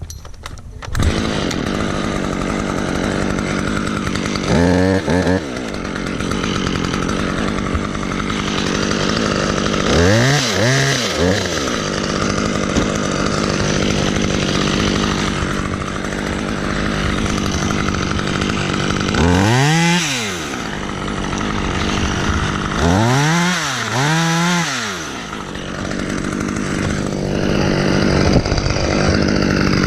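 Chainsaw running while cutting a branch. The engine drones steadily, and its pitch swings up and down about six times as the throttle and load change.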